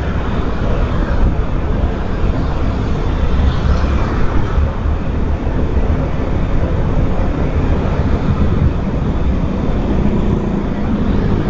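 Steady wind rush and road noise from a moving motorcycle, heavy in the low end, with the motorcycle's engine running underneath.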